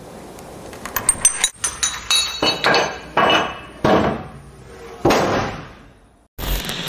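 A row of dominoes growing in size, started with a tap of a pencil, toppling one into the next: small sharp clicks about a second in, then knocks that come heavier one after another, the last about five seconds in.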